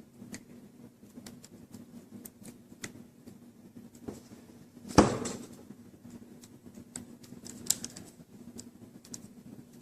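Small scattered clicks and ticks from screws being driven into a laptop's plastic screen casing and the parts being handled, with one louder knock about five seconds in.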